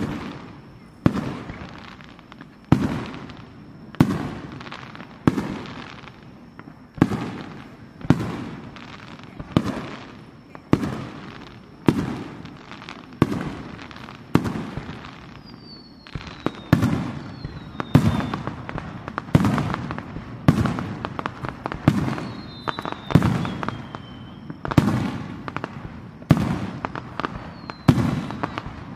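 Aerial firework shells bursting one after another, a sharp bang about every second with a rolling echo trailing each. From about halfway in the bursts come faster and overlap, with crackling and a few falling whistles.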